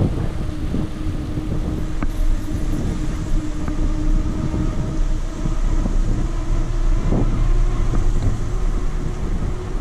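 Wind rushing over the microphone of a camera on a moving bicycle, with a steady low rumble of tyres on asphalt. A steady hum runs through the first few seconds.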